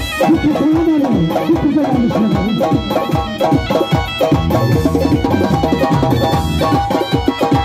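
Live Tajik folk party music: a doira frame drum beats a fast, steady rhythm under an electronic keyboard playing a melody with sliding notes. A fuller bass part enters about four and a half seconds in.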